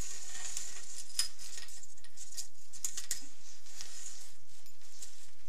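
Clear vinyl tubing being pushed and fed into a corrugated stainless-steel flexible faucet hose by hand: rustling and scraping of plastic against the metal hose, with scattered light clicks.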